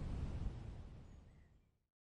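Forest ambience: a steady noise bed, heaviest in the low rumble, that fades out to silence near the end.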